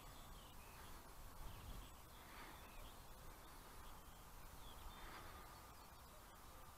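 Near silence: faint outdoor ambience with a couple of short, faint, distant bird calls.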